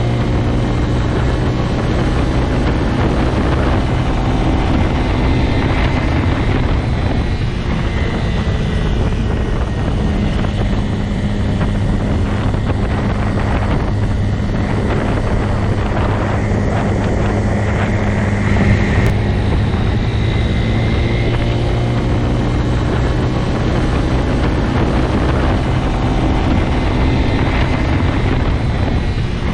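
Motorcycle engine running at a steady, even pitch, with a short louder surge about two-thirds of the way through.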